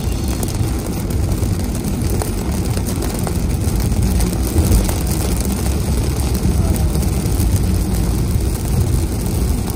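Steady low rumble of a car driving on a wet road, heard from inside the cabin, with a fainter hiss of rain and tyre spray.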